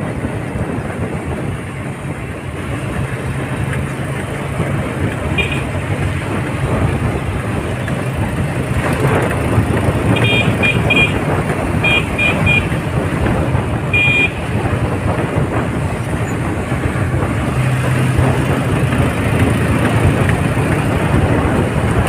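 Motorcycle engine running steadily under a rush of wind while riding along a road. A horn gives short beeps: one about five seconds in, quick runs of three a little after ten and twelve seconds, and one more near fourteen seconds.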